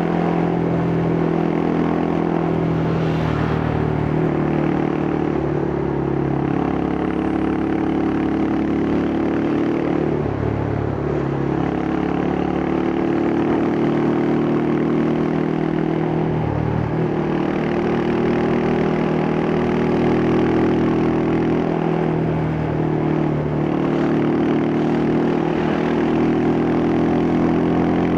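Yamaha Scorpio's single-cylinder four-stroke engine and exhaust running under way, its note rising and falling with the throttle and dipping briefly twice, as at gear changes.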